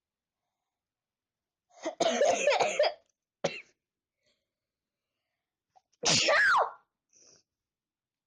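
A person sneezing twice, about two seconds in and again about six seconds in, the second ending in a voiced cry that falls in pitch, with a short sharp noise between them. The sneezes are brought on by tickling the nose with a twisted paper.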